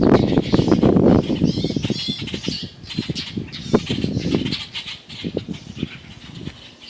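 Loud rustling and scuffling for about the first second, then a baby bird's high squawks and cheeps, with scattered clicks and shorter calls after.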